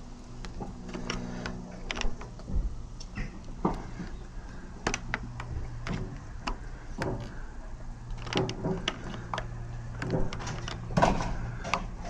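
Scattered clicks and knocks of metal UPVC door hardware being handled and worked, with the loudest knock about eleven seconds in, over a steady low hum.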